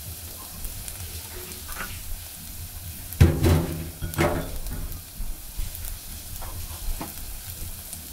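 Ginger and garlic sautéing in oil in a granite-coated saucepan: a steady sizzle while they are stirred, cooked only lightly so they do not brown. A brief louder sound comes a little over three seconds in.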